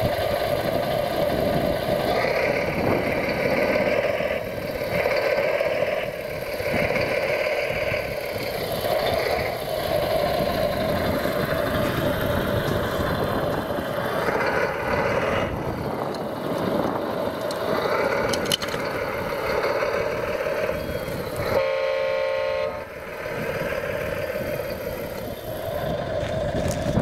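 Radio-controlled model construction vehicles running, a steady mechanical engine-like noise, with a short horn toot about 22 seconds in.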